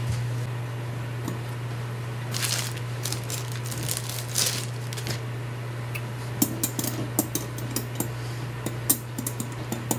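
Metal spoons being handled, clinking and tapping together in a run of small sharp clicks through the second half, after a couple of short rustles. A steady low hum lies underneath.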